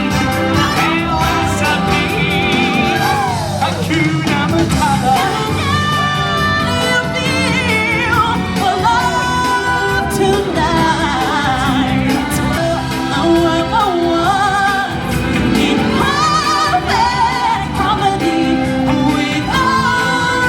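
Live musical stage-show performance: singers holding wavering notes over a loud, full backing track.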